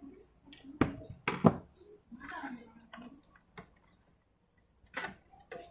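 Sharp clicks and light knocks of laptop plastic and metal parts being handled and pried, as the optical (CD-ROM) drive's cover is opened during disassembly. Several clicks come in the first second and a half, with one more near the end.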